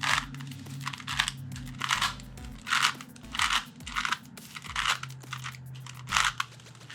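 Rubik's Tactile Cube being scrambled by hand: an uneven run of about a dozen short, scratchy plastic turns.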